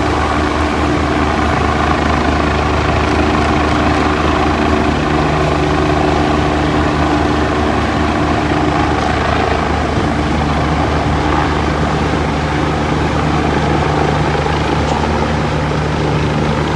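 Fire department helicopter hovering low overhead: a loud, steady drone of rotor and engine.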